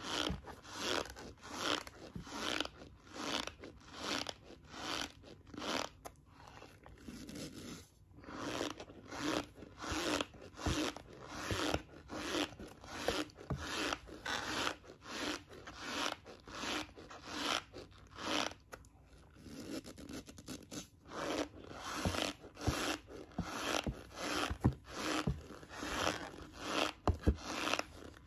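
Close-miked chewing of a mouthful of cornstarch, a steady crunch about twice a second, easing off briefly a couple of times.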